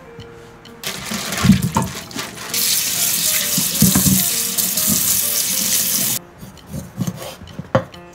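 Kitchen tap running into a stainless steel sink, splashing over sea squirts being rinsed by hand. The water starts about a second in, becomes a full steady stream, and is shut off abruptly about six seconds in, followed by a few sharp clicks.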